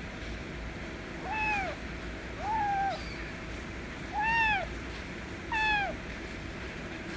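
White kitten meowing for attention four times, each meow about half a second long, rising then falling in pitch, over a steady low hum.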